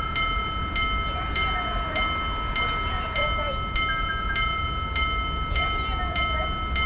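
Japanese railroad crossing warning bell ringing in a steady rhythm, a strike about every 0.6 s, over a steady low rumble of a train.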